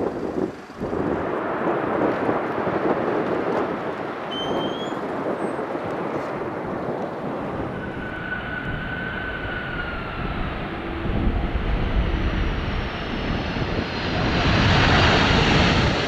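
Boeing 747 freighter jet engines on landing and touchdown: a steady rush of jet noise with a whine that falls in pitch partway through, growing to its loudest in the last couple of seconds as the plane rolls out on the runway.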